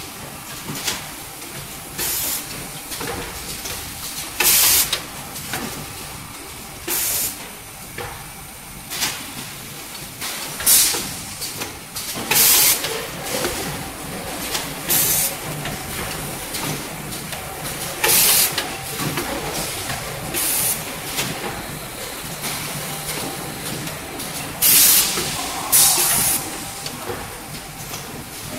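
Napkin tissue packing and sealing machine running: a steady mechanical hum broken every two to three seconds by short, loud hisses of air from its pneumatic parts.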